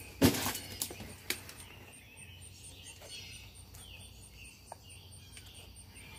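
Plastic mailer bag and cardboard box handled and pulled open: a loud crinkling rip just after the start, a couple of sharp clicks, then quieter crackling of the packaging.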